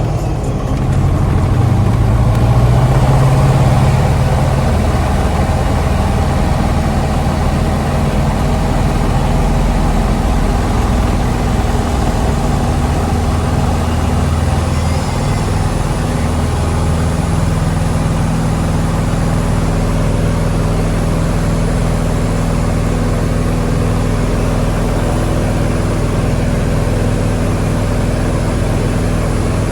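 Diamond DA20 light aircraft's piston engine and propeller running steadily, a continuous low drone heard inside the cabin. Its pitch shifts slightly about halfway through.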